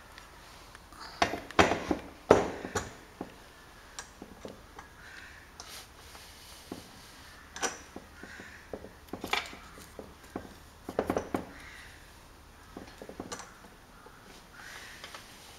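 Glass wine bottle knocking and clattering as it is set on and turned against the rollers of a Benchmate manual bottle labeller, a scatter of short sharp knocks with the loudest pair about one and a half and two and a half seconds in.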